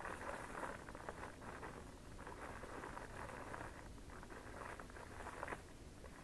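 Irregular crackling and rustling in short clusters with brief pauses, like crinkling paper or something crunching.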